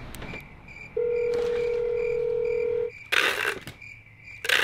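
A steady electronic beep held for about two seconds, over faint chirping crickets repeating two or three times a second. Then packing tape is pulled off a tape-gun dispenser in two quick rips, the second near the end, louder than the beep.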